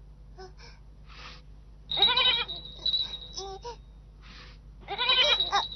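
Young goat bleating: a wavering call about two seconds in and another near the end, with short falling calls between.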